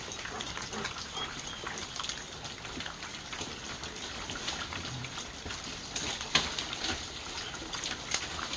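Water dripping from a sandstone overhang after heavy rain: a steady patter of many separate drops landing on wet leaves and rock.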